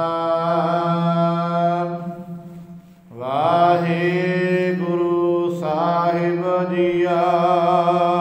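A man chanting Gurbani in long, held melodic phrases, with a short break about two and a half seconds in before the voice glides up into the next phrase.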